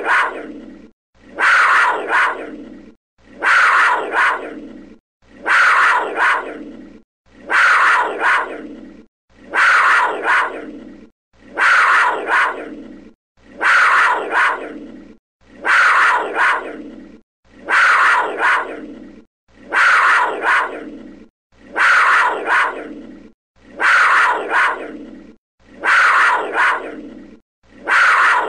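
A panther's harsh snarling call, the same short clip looped about every two seconds. Each call starts suddenly with a second brief pulse right after it, then trails off before the next one.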